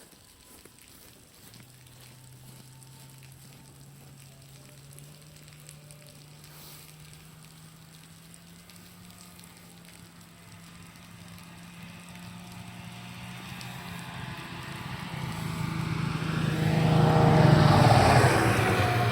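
A motor vehicle's engine approaches and passes close by. It is faint at first, grows steadily louder, and is loudest about three-quarters of the way through, its pitch dropping slightly as it goes past. A faint crackle of dripping water runs underneath.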